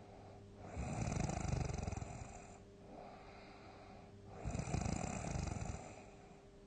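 A person snoring loudly: two long, rough, rattling snores, the first about a second in and the second after about four and a half seconds, with quieter breathing between them.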